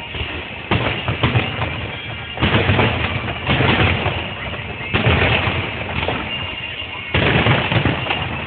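Fireworks shells bursting one after another: five sudden loud bangs about one to two seconds apart, each trailing off slowly into the next.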